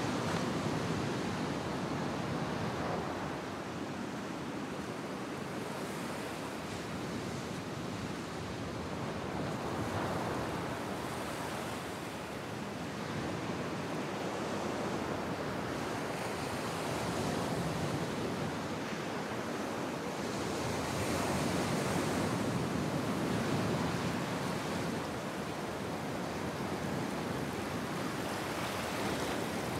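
Ocean surf breaking and washing up a sandy beach, a steady rushing that swells and eases every several seconds as waves come in.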